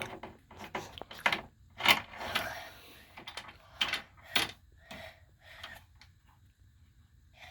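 Metal clamps and a workpiece being handled and fastened on a drill press table while the press is off: an irregular string of sharp clicks and knocks with brief scraping rattles between them.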